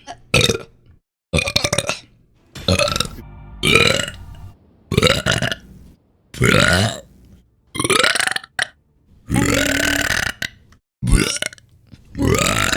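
A rapid string of separate burps from one person, about ten in a row, each cut off abruptly by a moment of silence. Most are short, and one just past the middle runs longer, about a second.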